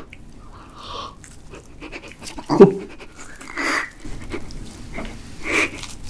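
A man huffing and panting through his open mouth as he bites and chews a piece of very hot grilled steak, blowing air to cool the meat in his mouth. The puffs come every second or two, and a short voiced grunt about two and a half seconds in is the loudest sound.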